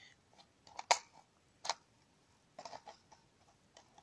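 Sharp plastic clicks of a mock round being worked into a toy pistol's plastic magazine: one loud click about a second in, another just under a second later, then a few lighter clicks and taps.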